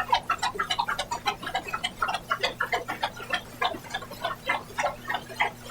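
Scattered applause from a small number of people: distinct, irregular hand claps, several a second, with a faint steady electrical hum underneath.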